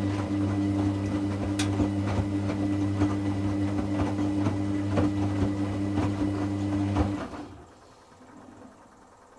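Hoover Classica 1100 washing machine's motor humming as it turns the drum during a rinse tumble, with a regular knock about twice a second. It stops abruptly about seven seconds in.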